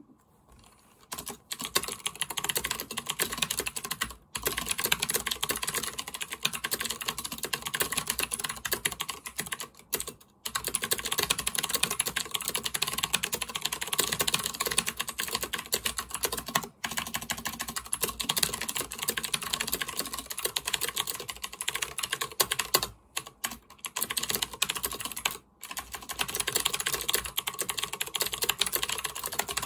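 Fast, continuous typing on a computer keyboard, broken by a few brief pauses.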